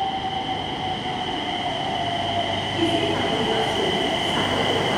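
Nagpur Metro train pulling into the station, getting louder as it approaches; its motor whine falls slowly in pitch as the train slows.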